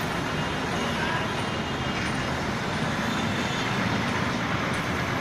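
Heavy diesel machinery running steadily at a piling site, a dense, even mechanical din with faint high ticks repeating a little more than once a second.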